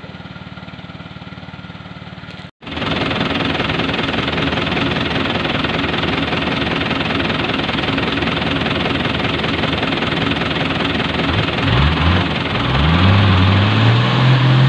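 Off-road 4x4 engines running on a muddy trail: a fainter idle, then after a break about two and a half seconds in, a louder engine running steadily. Near the end its revs climb twice and hold high.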